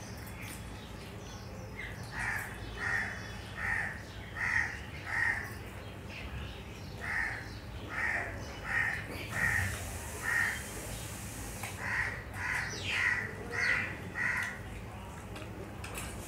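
A bird calling over and over in three runs of about five short calls each, the calls a little under a second apart.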